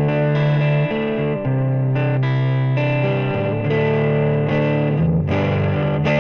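Electric guitar with humbucking pickups through a VOX VT40X modelling amp set to a tweed-style sound, playing a run of sustained, slightly overdriven blues-rock notes and chords.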